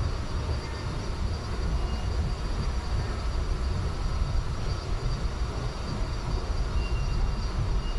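Steady low rumble of an underground subway station, with two faint short high tones, about two seconds in and near the end.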